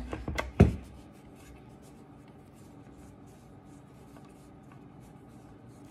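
A couple of sharp knocks in the first second as the flathead screwdriver meets the underside of a stand mixer's base, then faint scratching and rubbing as it turns out a screw.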